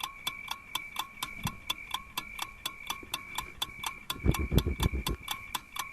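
Rapid, even mechanical ticking, about five ticks a second, over a faint steady high tone. About four seconds in, a short run of loud low thuds cuts across it.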